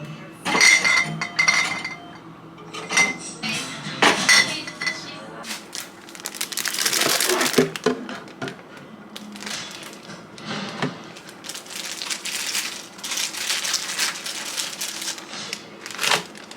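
Glass or hard items clinking and being set down, some with a short ring, between stretches of rustling and handling noise. Background music plays underneath.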